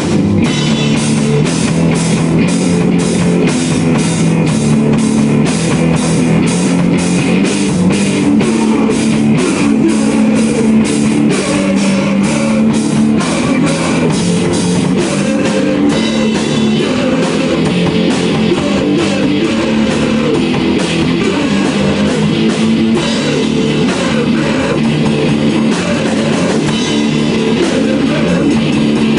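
A live rock jam on guitar and drum kit, loud and continuous. The drums keep an even, regular beat through the first half, and the pattern changes about halfway through.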